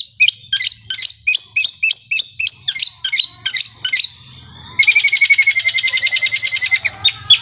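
Long-tailed shrike (cendet) singing: a run of sharp repeated notes, about four or five a second, then a short pause and about two seconds of a very fast rolling trill like a sewing machine. A few more sharp notes come near the end.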